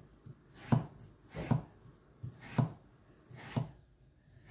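Chef's knife slicing down through a raw peeled potato wedged between two wooden spatulas, each cut stopping on the spatulas: hasselback-potato slits. Four main chops about a second apart, with lighter taps between.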